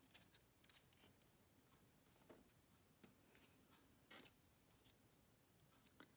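Near silence with faint, scattered light clicks and rustles of hands handling small paper pieces and a roll of glue dots.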